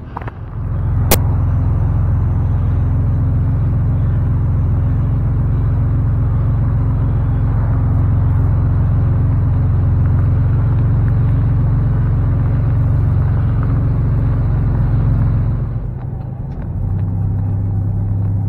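A car engine starts under a second in and runs steadily, with a sharp click just after it starts. Near the end the engine note dips briefly and settles at a slightly different pitch.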